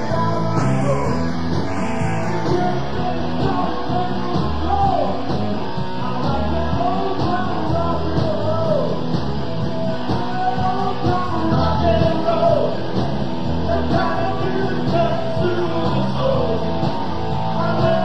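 Rock and roll song by a full band, with singing over the instruments.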